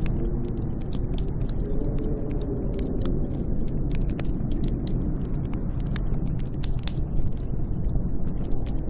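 Snowstorm wind blowing as a steady low rumble with a faint wavering howl, over many small sharp crackles and pops.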